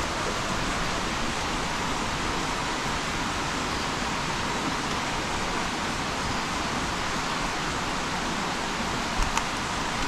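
Steady rushing of a forest stream flowing over rocks, with two small knocks near the end.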